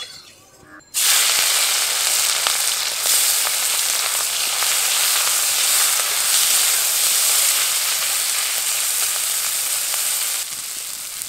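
Small marinated shrimp frying in hot mustard oil in a kadai: a loud, steady sizzle that starts suddenly about a second in and eases a little near the end.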